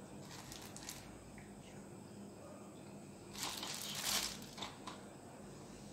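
Faint handling noise as cashew nuts are set one by one on top of a kunafa: a soft rustle and crinkle about three and a half seconds in, with a few small ticks around it.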